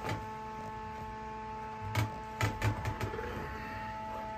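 Blower door fan running steadily during an air-leakage test, a constant hum with several pitches. A few knocks about two seconds in, from the attic hatch cover being handled.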